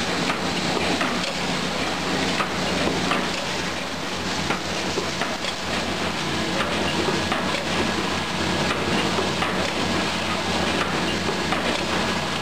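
Aluminium foil container making machinery running: a continuous mechanical clatter with irregular clicks over a steady low hum.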